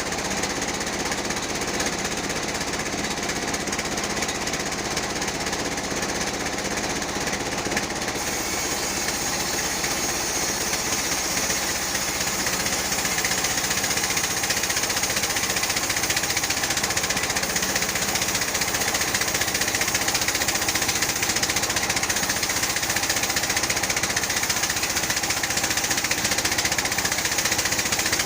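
Type 36 band sawmill running steadily as it rips a teak log lengthwise, a continuous machine drone with a hissing blade. The sound grows louder about halfway through.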